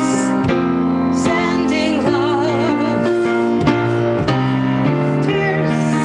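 A woman singing to her own instrumental accompaniment: a wavering sung melody over held chords.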